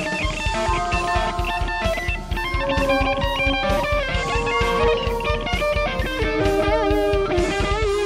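Electric guitar music: held melody notes over a fast, steady low pulse, with the notes wavering in vibrato near the end.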